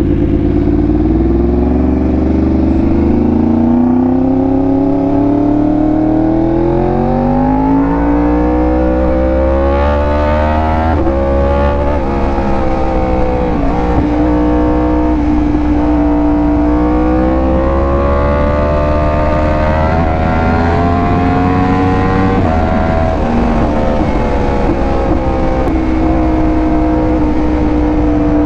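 Yamaha R1M's crossplane inline-four with an SC Project exhaust under way, pitch climbing slowly as it pulls through the revs. Several times in the second half it dips and climbs again with gear changes, then holds fairly steady.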